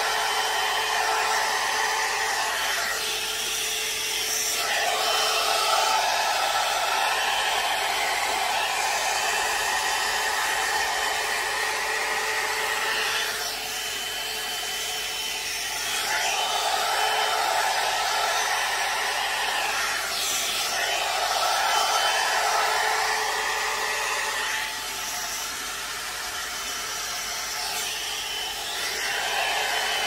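Hot air brush hair dryer, a duplicate of the Revlon One-Step, blowing steadily while styling hair. Its sound dulls and picks up again a few times.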